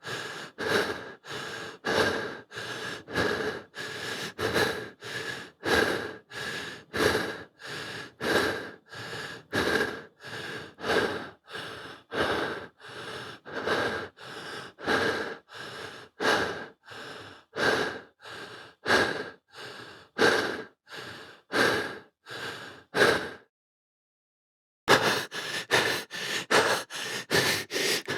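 Human breathing, steady in-and-out breaths at a medium pace, about one full breath a second. After a short silence near the end, the breathing resumes at a faster pace.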